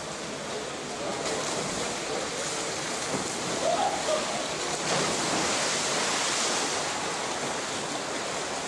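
Swimmers splashing in an indoor pool, a steady wash of water noise in an echoing pool hall that grows louder around the middle.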